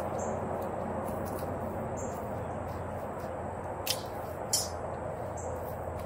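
Outdoor ambience: a steady background hiss with a few faint, short, high chirps, and two sharp clicks about half a second apart just past the middle.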